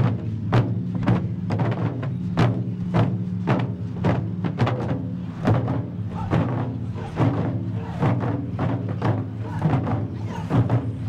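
Taiko drum ensemble playing: large barrel drums struck with wooden sticks in a steady, driving rhythm, with strikes about twice a second and quicker hits in between.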